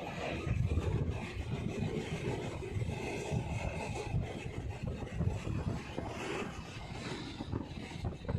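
Moving passenger train: a steady rumble of the wheels running on the track, with wind buffeting the microphone.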